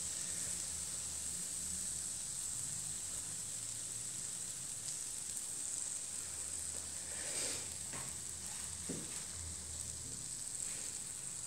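Krapfen (filled doughnuts) frying on their second side in hot oil in an enamel pan: a steady, gentle sizzle, with a few faint knocks about two-thirds of the way through.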